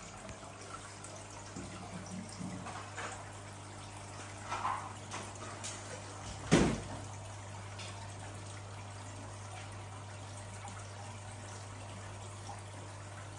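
Aquarium filter running: a steady low hum with water trickling and splashing into the tank. A few faint knocks in the first half and one sharp knock about six and a half seconds in.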